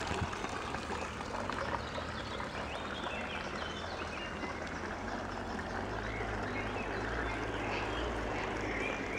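Outdoor ambience by a pond: a steady hiss with a low rumble, and a few faint bird chirps.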